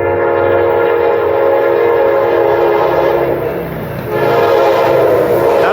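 Passenger train horn sounding a chord from the leading NPCU cab car: one long blast that breaks off about three seconds in, then a second blast starting about a second later, over the low rumble of the approaching train.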